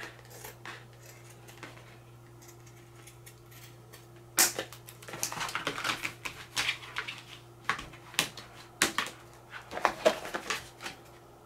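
Scissors snipping the edge of a thin plastic placemat, and the sheet crackling and knocking against a plastic container as it is fitted. Faint at first, then a dense run of sharp irregular clicks from about four seconds in.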